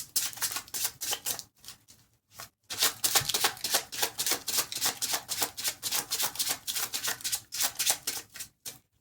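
A deck of tarot cards being shuffled by hand: a rapid run of papery flicks that breaks off about a second and a half in, starts again a second later and stops near the end.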